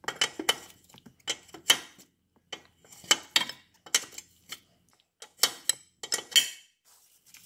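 A 19 mm combination wrench clinking on the lower ball joint stud nut as the nut is worked off the stud. Sharp metal clicks come in short groups, about one group a second.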